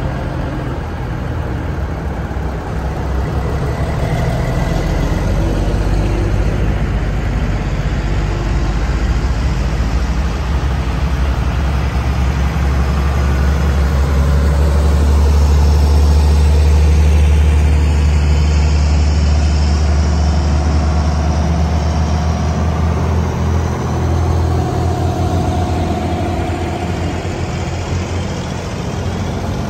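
Diesel engines of antique heavy trucks, Brockways among them, running as the trucks drive past one after another. The low engine rumble builds to its loudest about halfway through as a heavy truck passes close, then eases.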